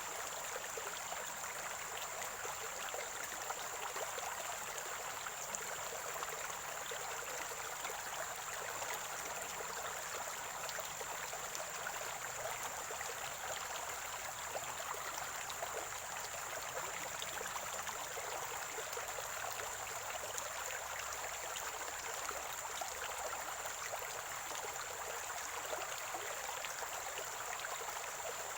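Spring-fed stream water gurgling and trickling steadily, with a thin steady high-pitched whine above it.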